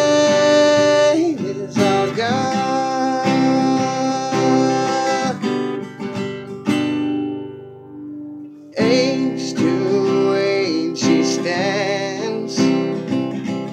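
A man singing long held notes over a strummed acoustic guitar. Near the middle the voice drops out and the guitar dies down, then strumming and singing come back in suddenly about nine seconds in.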